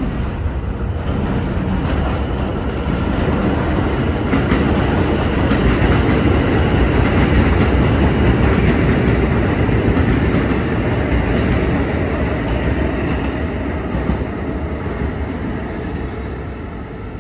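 New York City subway train running past on elevated tracks. Its rumble grows louder to a peak about halfway through, then fades toward the end.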